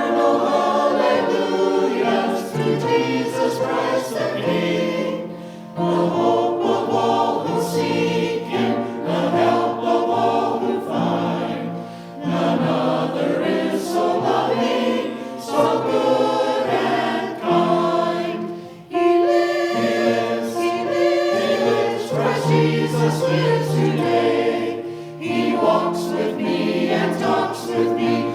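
A choir singing a hymn in phrases, with short breaths between them.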